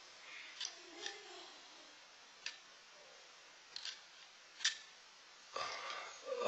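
Mostly quiet, with five or six faint, sharp clicks scattered through it. Near the end comes a sharp breath drawn in through the mouth.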